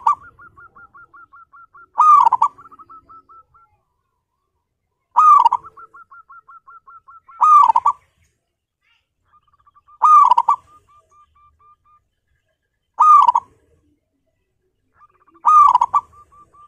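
Zebra dove (perkutut) singing repeatedly: a loud, curling coo about every two and a half seconds, several of them trailing off into a quick run of soft, evenly spaced notes.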